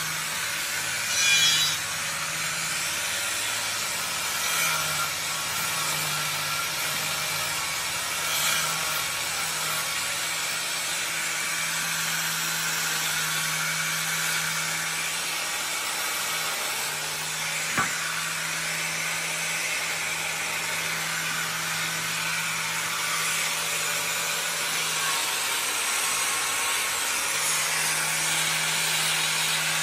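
Handheld angle grinder running steadily while its disc grinds and shapes wood, a constant motor hum under a coarse abrasive hiss. A single sharp click partway through.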